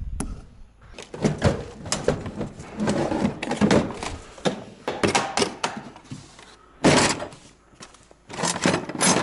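Handling noise of tools and a red plastic tool case being opened: clatter, knocks and rustling as a reciprocating saw and its packaged blades are taken out, with a louder thunk late on.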